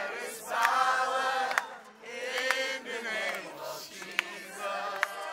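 A group of men and women singing a worship song together, in held notes and short phrases, with a few sharp clicks cutting through.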